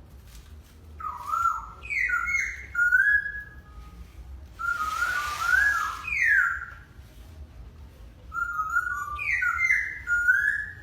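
A whistled tune in short phrases of stepped and sliding notes, the same phrase coming back near the end. Partway through there is a brief hiss.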